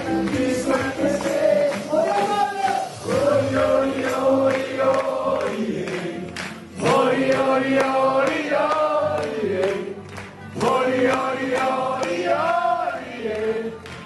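A man singing a carnival song into a handheld microphone over a PA, with other voices singing along and music behind; the singing comes in phrases with short breaks between them.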